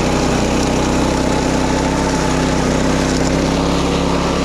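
Wing mower's small petrol engine running steadily at constant speed, with an even, unchanging drone.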